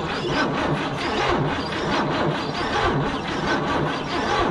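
1975 Ford Granada engine being cranked over by its starter, with a regular beat of about two compression pulses a second. It is turning over on a battery with poor cable connections, after fuel was poured into the carburetor.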